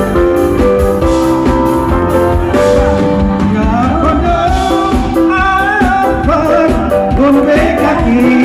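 Live band playing an upbeat song through the stage sound system, with a man singing into a microphone over it from about halfway through.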